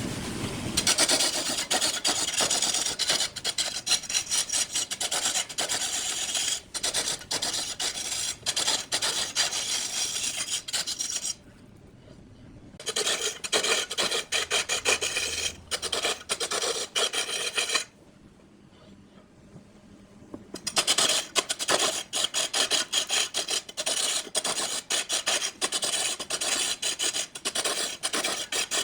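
A turning tool cutting a spinning wood block on a lathe: a steady, dry rasping scrape that breaks off twice for a second or two.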